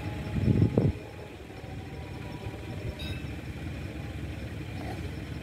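Low, steady rumble of an approaching train's diesel locomotive, not yet in sight, with a brief loud rush of noise about half a second in.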